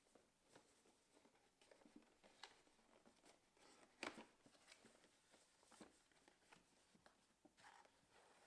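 Faint handling noises of unboxing: scattered soft clicks and short rustles of cardboard and plastic packaging, with one sharper click about four seconds in.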